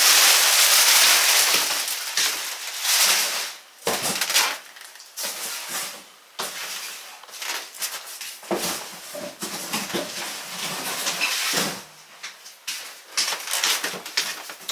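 A bench being moved across a hardwood floor: a loud scraping for the first couple of seconds, then irregular knocks, scuffs and footsteps as furniture is handled.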